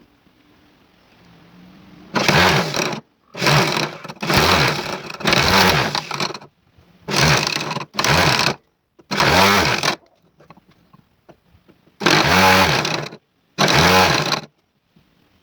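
A motorised power tool run in about ten short bursts, each under a second or so, with near-silent gaps between them.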